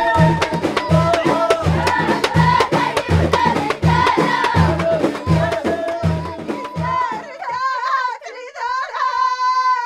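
Traditional Amazigh wedding song: a group singing a chanted refrain over a steady beat of hands striking metal pans and a hand drum, with clapping. About seven and a half seconds in the beat stops and a high voice sings on alone.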